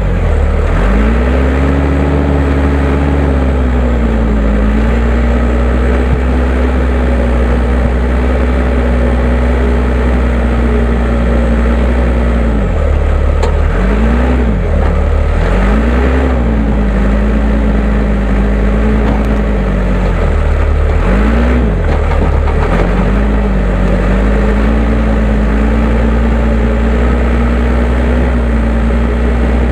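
Case 580M backhoe loader's four-cylinder diesel engine running hard under load, its pitch sagging and recovering several times: once right at the start, a few times between about 12 and 17 seconds in, and again around 21 to 23 seconds in, as the machine scrapes grass off hard ground.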